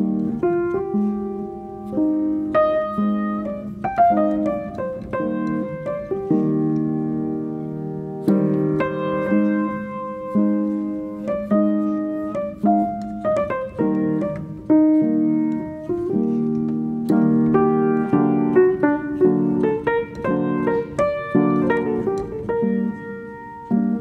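Background piano music: a melody of struck notes.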